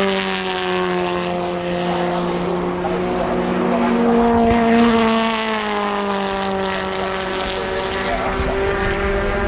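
British Touring Car Championship touring cars' turbocharged four-cylinder engines running hard as the pack goes by. Several engine notes are held near steady; a second note comes in about four seconds in and then slides slowly down in pitch.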